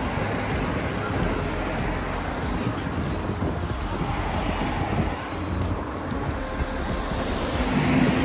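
Road traffic noise: a steady rumble of vehicles, with wind buffeting the microphone.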